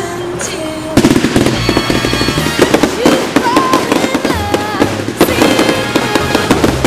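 Fireworks display: dense bursts and crackling of aerial shells, starting abruptly about a second in, mixed with loud music.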